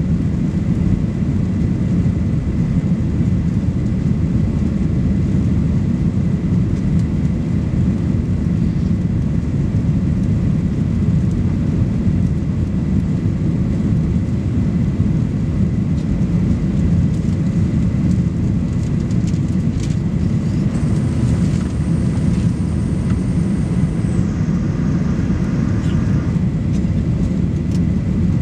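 Steady low roar inside the cabin of a Boeing 737 Next Generation jet climbing out after takeoff: its CFM56-7B turbofan engines at climb power and air rushing past the fuselage.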